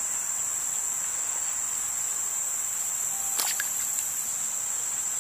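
Cicadas singing, a steady high-pitched buzz with no break. One brief click about three and a half seconds in.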